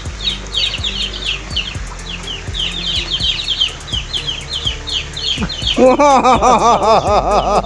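Birds chirping steadily in quick, repeated downward notes. About six seconds in, a louder bird call of fast repeated rising-and-falling notes comes in and is the loudest sound.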